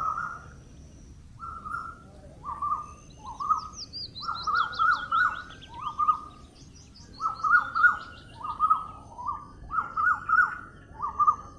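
Songbirds singing: one bird repeats short, down-slurred chirps about once or twice a second, and a second bird adds a quick, high, descending trill between about three and eight seconds in.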